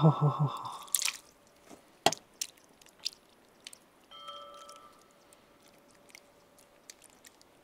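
Sparse light clicks and knocks from handling cookware and ingredients, with a faint steady ringing tone for about two seconds near the middle.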